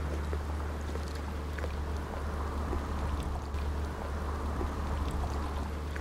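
Small lake waves lapping and trickling against a pebble shore, with a steady low rumble underneath.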